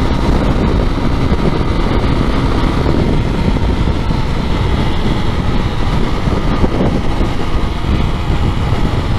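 Honda motorcycle under way at road speed: heavy wind rush over the camera microphone with the engine running steadily underneath.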